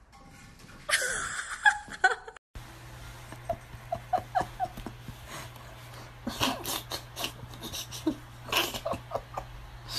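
A person laughing in short bursts, over a steady low hum.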